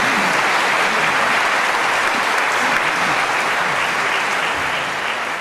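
Audience applauding steadily after a choir's song. The applause begins to die away near the end.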